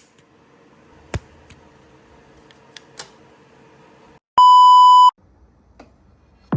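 A single loud, steady electronic beep with a pitch near 1 kHz, lasting under a second, about four seconds in. Before it come a few faint clicks over low background noise.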